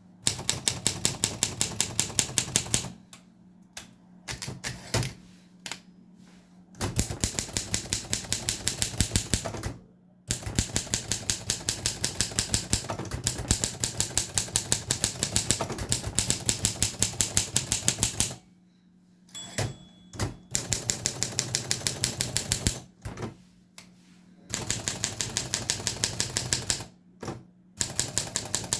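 Olympia SM3 manual typewriter being typed on: runs of sharp key strikes, about five a second, broken by several short pauses.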